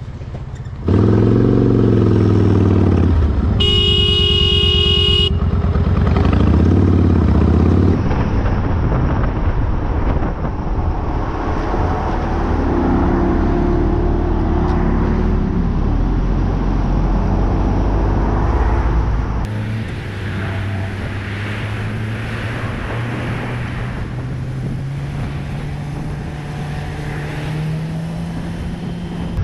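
Motorcycle engine running and revving, with one horn blast of about a second and a half a few seconds in. Near the end the engine pitch climbs steadily as the bike accelerates.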